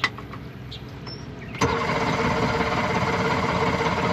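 Evinrude outboard motor: after a quieter stretch with a click at the start, it comes up suddenly about one and a half seconds in and runs loud and steady. One side of the engine's power packs has just failed.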